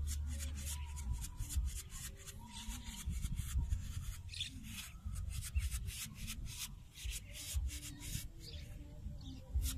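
Long-handled digging bar stabbing and scraping into damp soil, a rough scraping stroke several times a second over a low rumble.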